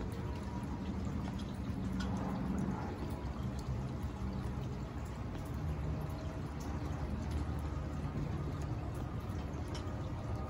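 Rain falling on a swimming pool and its wet concrete deck: a steady patter, with a few sharper single drips now and then.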